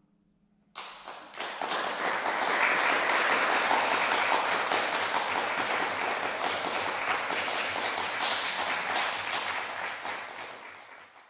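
Audience applauding at the end of a harp performance, starting suddenly under a second in and fading away near the end.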